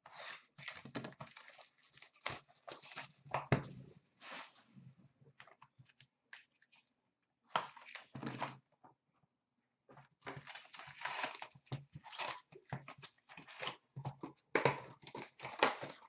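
Wrapping crinkling and tearing and a cardboard box being handled as a 2013-14 Fleer Showcase hockey card box is opened and its foil packs taken out. The rustling comes in irregular bursts with two short pauses and is densest in the second half.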